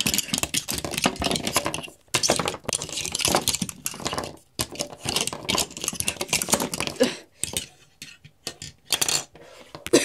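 Handling noise close to the microphone: dense scraping and rustling with small clinks, breaking off briefly about two seconds in and again about four and a half seconds in, then thinning out near the end.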